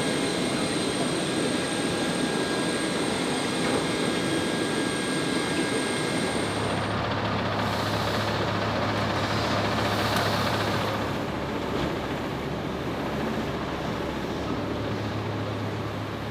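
Jet airliner noise on an airport apron: a steady roar with a thin high whine. About six seconds in it gives way to a coach bus's engine idling with a low steady hum.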